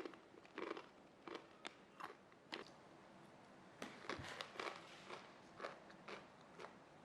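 Quiet, irregular crunching and clicking: a dozen or so short crunches at uneven intervals, bunched more closely about four seconds in.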